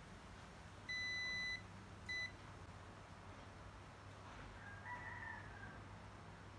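Two high electronic beeps from a bench test instrument, one long and one short, about a second apart. Near the end comes a faint distant rooster crow.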